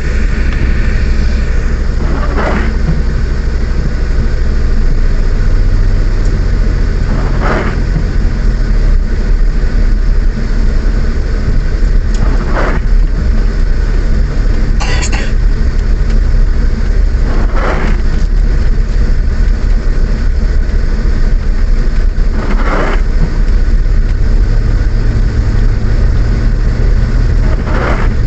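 Car driving in the rain, heard from inside the cabin: steady engine and road noise, with the windscreen wipers sweeping about every five seconds.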